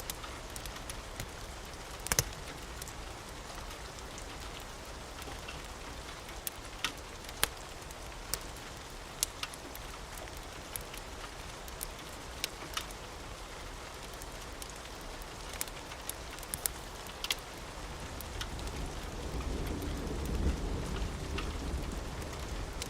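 Steady rain hiss with a wood fire crackling, sharp pops every second or so. A low rumble of thunder builds over the last few seconds.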